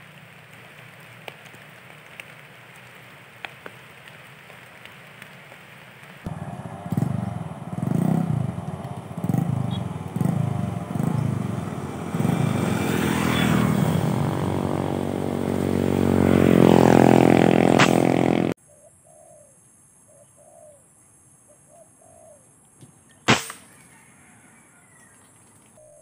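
Faint outdoor background with light ticks, then a loud section of slow thumps about once a second under a swelling, rising tone that cuts off abruptly. After it come a few short bird chirps and a single sharp rifle shot near the end.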